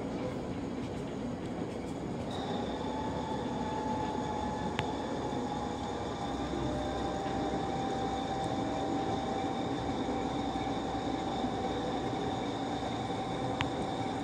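Metre-gauge works train of yellow ballast hopper wagons rolling slowly past with a steady rumble. About two seconds in, a steady high wheel squeal sets in and holds, with a few sharp clicks.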